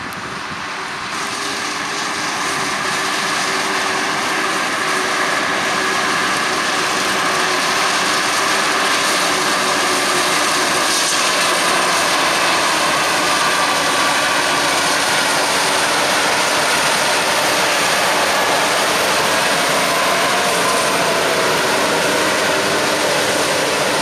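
Krone BiG X 1180 self-propelled forage harvester chopping maize under load, its engine and chopping gear running as a loud, steady hum and hiss, together with the New Holland T7 tractor pulling the trailer alongside. It grows louder over the first few seconds as the machines come closer, then holds level.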